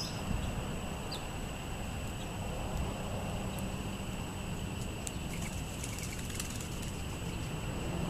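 Steady outdoor background noise with a low hum, and a couple of brief, high bird chirps near the start. A scatter of faint small ticks comes about five to six and a half seconds in.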